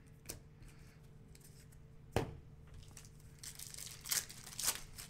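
Plastic wrapper of a basketball card pack being torn open and crinkled, in short crackly bursts in the second half, with one sharp tap about two seconds in.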